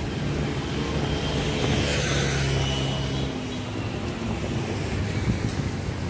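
Oxelo MF500 inline skate wheels rolling over a paved sidewalk, with wind buffeting the microphone and road traffic passing alongside, loudest about two seconds in.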